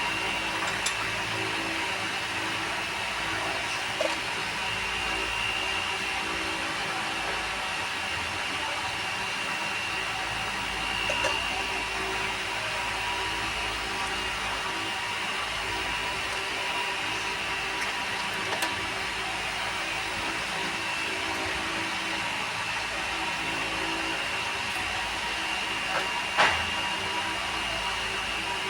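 Steady whir of a small electric motor or blower, with a faint high whine, broken only by a few light clicks.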